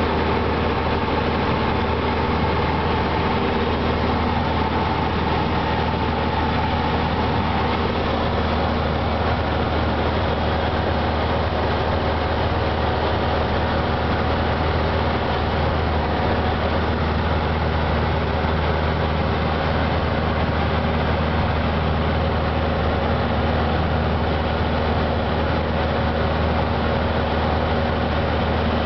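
Cessna 150's four-cylinder Continental O-200 engine and propeller droning steadily in cruise flight, heard from inside the small cabin.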